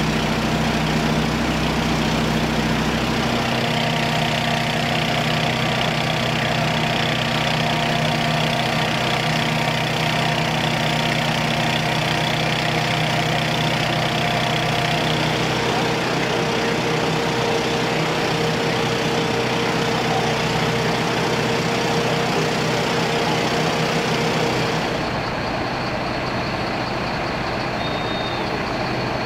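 Heavy fire-truck diesel engine idling steadily.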